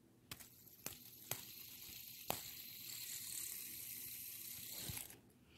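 Two-armed fidget spinner flicked with a few sharp clicks, then spinning on its bearing with a faint, steady high whir that stops about five seconds in.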